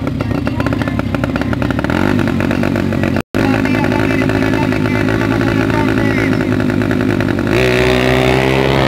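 Small drag-racing motorcycle engine running hard at the start line, with a brief dropout about a third of the way in. Near the end it launches, its pitch climbing steeply as the bike accelerates away.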